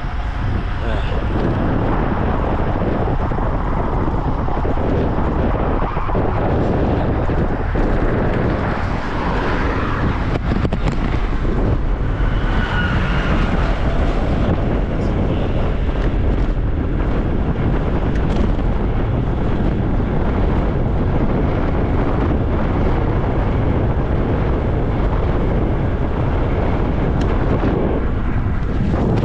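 Steady wind rushing over the microphone of a moving bicycle, mixed with road and passing-vehicle noise.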